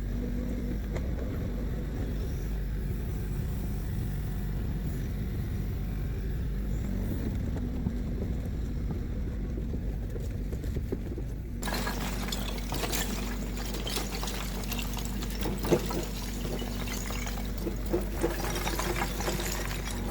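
A machine's engine drones steadily. Just past halfway the sound changes abruptly, and a dense rattling and clattering with a few sharper knocks joins the drone.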